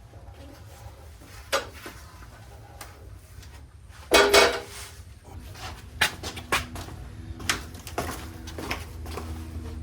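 Metal parts and tools clanking and knocking, with one loud ringing clank about four seconds in; a steady low hum comes in about halfway through.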